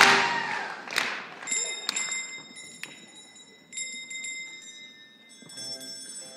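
Two loud accented hits, then high metallic bell chimes struck a few times, each ringing on and fading.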